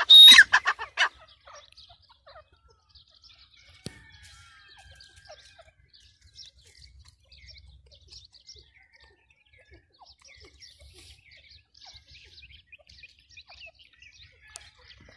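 Grey francolin calling: a loud run of harsh, quickly repeated notes that breaks off about a second in, leaving only faint, scattered chirps of other birds.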